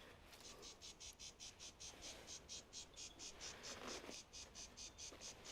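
Faint insect chirping, a steady high-pitched pulse of about five or six chirps a second, like a cricket.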